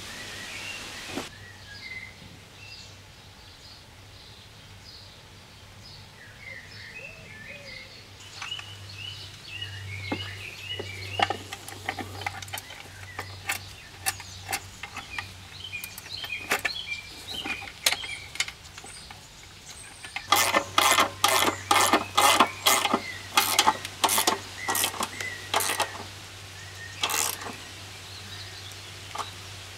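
Hand socket ratchet clicking in quick strokes as the bolts of a new muffler are run down on a Briggs & Stratton lawnmower engine, loudest and densest in the second half. Small birds chirp in the first half.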